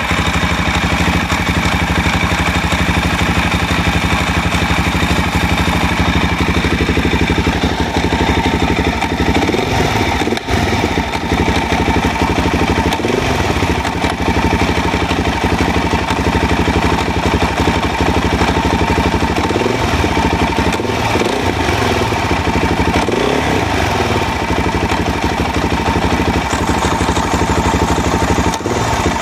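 Suzuki DR-Z400's single-cylinder four-stroke engine running, steady throughout, with its pitch shifting a few times in the middle.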